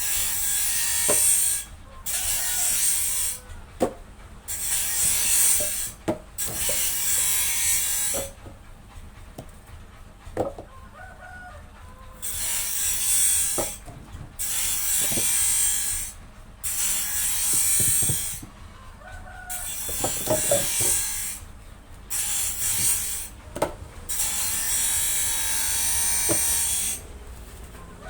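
Woodworking tool cutting melinjo wood in repeated hissing passes, each a second or two long with short pauses and a few clicks between them.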